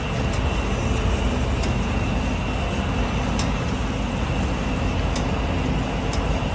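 Steam rushing into a steam unit heater as a steady low rumble, with a few sharp knocks scattered through it. This is steam banging in a coil that has been waterlogged with condensate.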